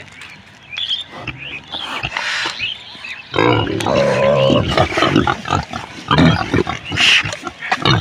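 Pigs calling, sparse at first and then a loud, near-continuous run of calls from about three seconds in.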